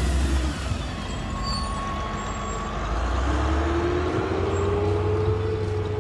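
Low road and engine rumble heard from inside a car in slow traffic. A city bus alongside pulls away, its engine or transmission whine rising slowly in pitch through the second half.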